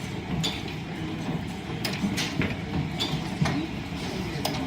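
Line-shaft driven wood lathe running, with the steady rumble of the belt-driven shafting under irregular short clicks and scrapes.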